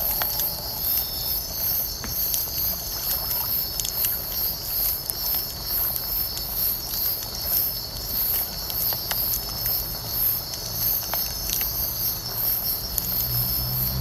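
Night insects chirping in a high, pulsing chorus, with a steadier buzz lower down, over the low rumble of a wood bonfire and its occasional crackles and pops.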